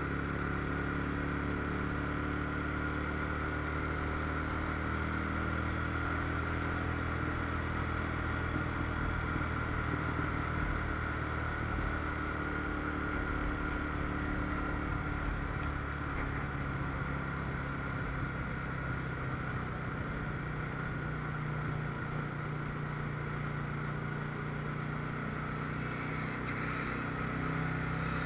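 Sport motorcycle's engine running steadily under way in city traffic, heard from the rider's on-board camera with road and wind noise.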